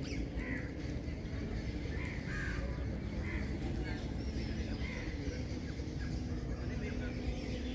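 Birds calling, short harsh calls repeating every half second to a second or so, over a steady low rumble.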